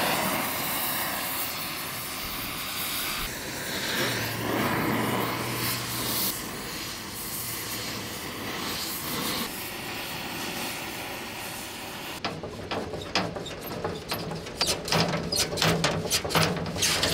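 Oxy-acetylene torch hissing steadily as it heats a rust-seized steel door hinge. About twelve seconds in this gives way to a quick run of sharp metallic clanks and knocks as the sheet-steel door is worked back and forth to break the rust free.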